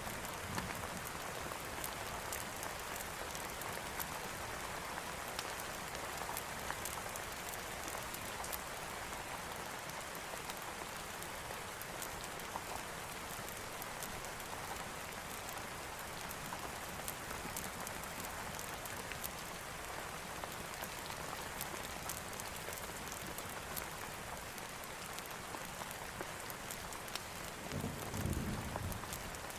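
Steady heavy rain falling, with scattered fine drop ticks, and a short low rumble of distant thunder near the end.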